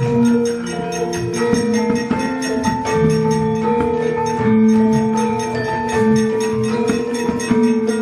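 Javanese gamelan playing: bronze metallophones and gongs ring out a steady melody of held notes, with sharp knocking over it.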